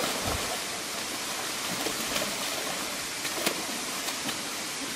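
Water splashing and churning steadily as two tigers wrestle in a pool, with a few sharper splashes in the second half.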